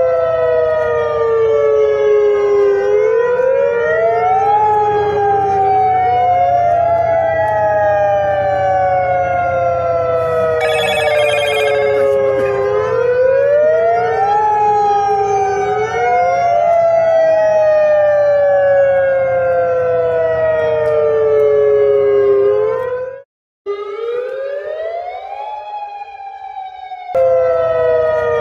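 Tsunami warning sirens wailing: each wail rises quickly, then slides slowly down in pitch for several seconds, over and over, with two sirens overlapping out of step. The sound breaks off briefly near the end and then comes back.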